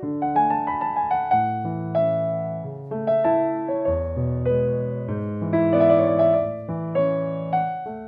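Background piano music: notes struck one after another, each dying away, over held low notes.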